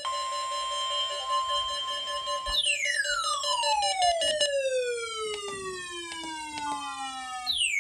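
Electronic tones: steady held tones, then from about two and a half seconds a tone that glides steadily down in pitch over about five seconds, starting again high near the end.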